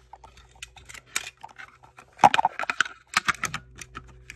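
Clicks, taps and rattles of smoke alarms and their batteries being handled as batteries are swapped, with the loudest clatter about two seconds in, over a faint low steady hum.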